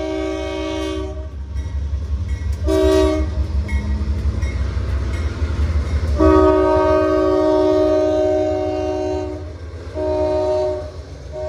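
Norfolk Southern diesel freight locomotives passing close by, the lead unit's air horn sounding a chord of several notes in separate blasts: one ending about a second in, a short blast about three seconds in, a long one from about six to nine seconds, and another short one near the end. A deep rumble of the diesel engines and wheels runs under the horn.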